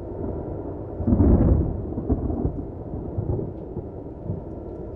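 A deep, low rumbling that swells to its loudest about a second in, then carries on as uneven rumbles.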